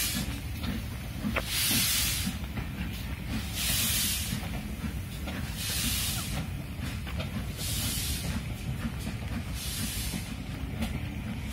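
LMS Princess Coronation Class steam locomotive Duchess of Sutherland pulling away, heard as bursts of steam hiss about every two seconds that grow fainter as it draws off, over a steady low rumble.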